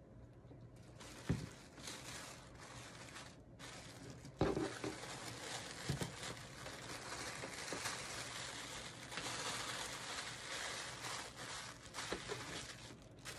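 Tissue paper rustling and crinkling as it is handled and folded around a jar, with two light knocks, one about a second in and one a few seconds later.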